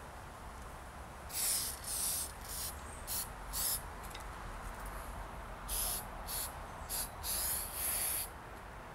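Aerosol can of 3M spray adhesive being sprayed in a string of short bursts of hiss, about ten in all, with a pause of a second or two midway.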